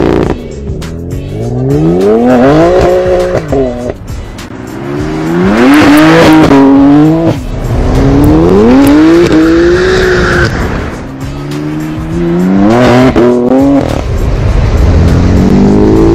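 BMW M4 (F82) twin-turbo straight-six through an Akrapovic exhaust, accelerating hard: five loud runs of rising engine pitch, each cut off by a drop as the next gear is taken or the throttle is lifted.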